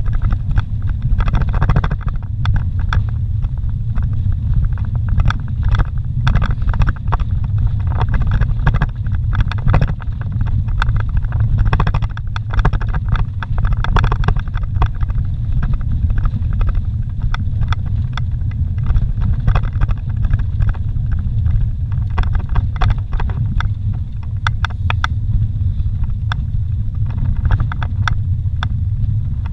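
Vehicle driving on a rough dirt road, heard from inside the cabin: a steady low rumble of engine and tyres, with frequent small rattles and knocks from the bumpy surface.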